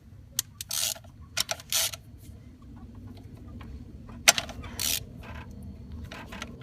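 Ratchet and deep socket working the thermostat housing bolts loose: short bursts of ratchet clicking and metal clinks, with one sharp click about four seconds in.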